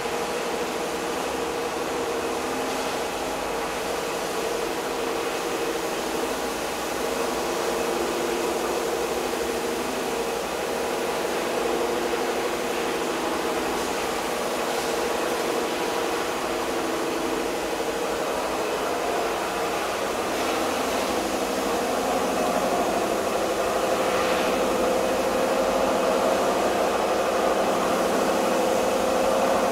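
Electric motor and screw drive of a screw cold press running, a steady mechanical hum with several held tones. About two-thirds of the way through its tone shifts, and it gets slightly louder near the end.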